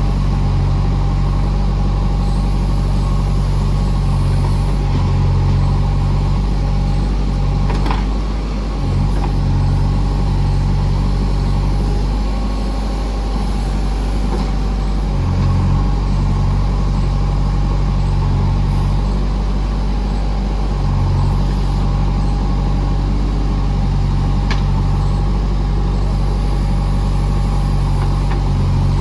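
JCB backhoe loader's diesel engine running steadily while loading mud, with two brief knocks, one about eight seconds in and one near the end.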